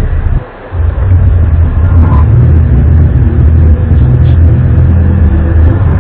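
Loud, low droning rumble with a steady, buzzy pitch, of the kind recorded and shared as an unexplained 'strange sound in the sky'; it drops away briefly about half a second in, then carries on.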